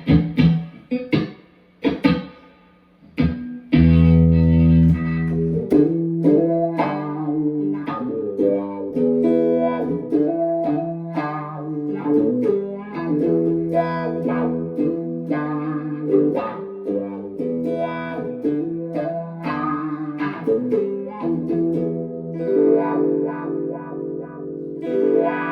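Electric guitar played through a Dunlop Cry Baby wah pedal into a Mesa Nomad 100 amp. It opens with a few short stabbed chords, then about four seconds in settles into continuous playing of notes and chords.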